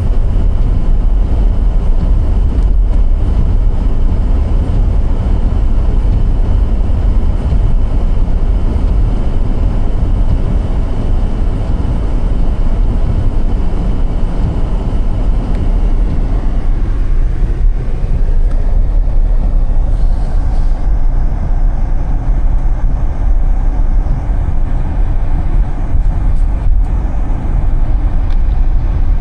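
Car driving on a snowy road: a steady, loud, low rumble of tyres and road noise.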